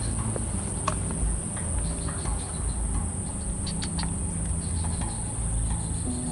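Insects trilling in a steady high-pitched drone, with scattered short chirps and ticks over a low outdoor rumble.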